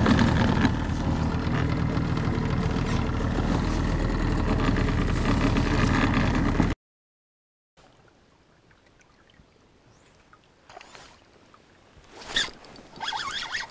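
Outboard motor running at a steady speed, pushing an inflatable boat along, with water rushing past the hull. It cuts off suddenly about seven seconds in, and after that there is only quiet outdoor background with a few faint handling sounds.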